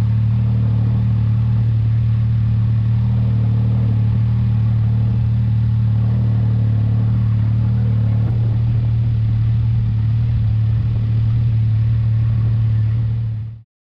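Can-Am Maverick X3's turbocharged three-cylinder engine idling steadily, heard from inside the cab; the sound fades out near the end.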